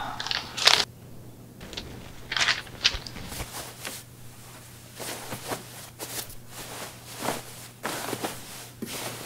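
Clothes on hangers being rustled and pushed aside in a closet: a series of short, soft rustling and scraping sounds, coming thicker in the second half, over a low steady hum.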